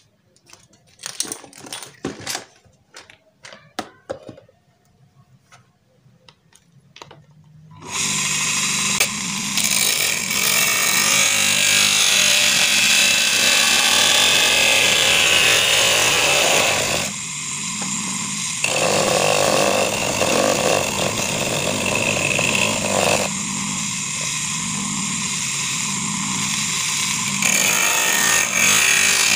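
A few scattered clicks and knocks, then about eight seconds in a homemade cutter, a water-pump motor spinning a small cutting disc in a drill chuck, starts a loud, steady grinding as the disc cuts through PVC pipe. The noise dips twice and comes back.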